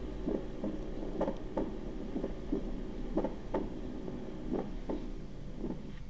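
Recorded auscultation heart sounds: paired beats about once a second, slightly uneven in rhythm, over a steady hum. This is a teaching recording of a split first heart sound with arrhythmia.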